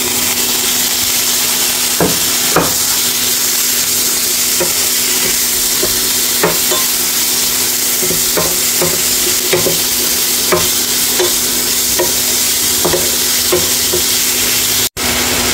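Meat sizzling in hot oil in a pan with minced garlic and shallot, stir-fried with a spatula that clicks and scrapes against the pan about once or twice a second. A steady low hum runs underneath.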